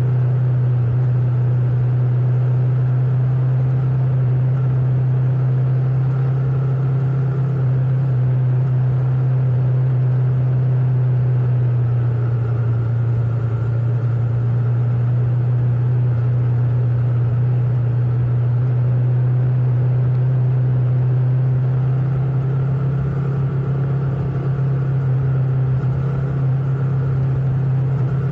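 Motorcycle engine running at a steady, unchanging pitch: a constant low drone with faint higher overtones.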